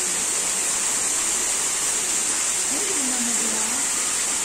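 Artificial waterfall trickling down a rock wall into a pond, a steady splashing hiss.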